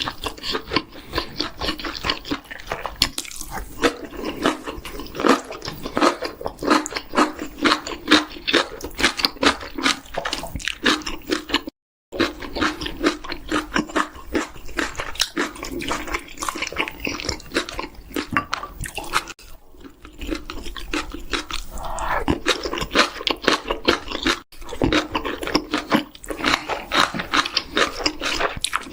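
Close-miked chewing and biting of chicken, a rapid run of wet smacking and crunching mouth sounds, with a very brief break about twelve seconds in.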